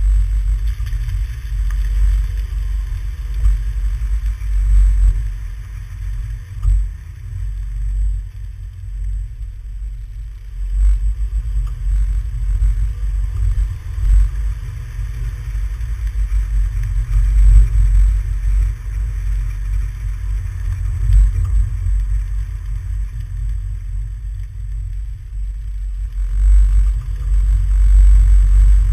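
Muffled rumble of a car driving, with wind buffeting, picked up by a GoPro sealed in its waterproof case and mounted on the outside of the vehicle. The deep rumble swells and falls repeatedly.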